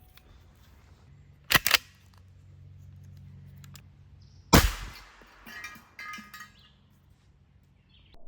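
A .45-calibre Bintac M50 pump-action air pistol fires one loud, sharp shot at a propane bottle about four and a half seconds in. It is preceded by a quick pair of clicks and followed by a brief rattle of ringing metallic clinks.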